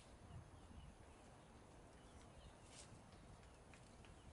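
Near silence: faint outdoor ambience with a low rumble and scattered short, high chirps and faint clicks.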